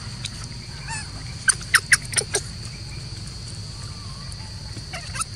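Five short, loud animal calls in quick succession about a second and a half in, each dropping in pitch, then a quieter pair of calls near the end, over a steady high drone.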